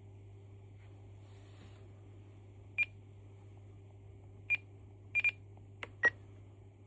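Short high beeps from a Spektrum radio transmitter as its menu is scrolled and selected: single beeps about three and four and a half seconds in, a quick double beep just after five seconds, then a click and a slightly lower beep near six seconds, over a steady low hum.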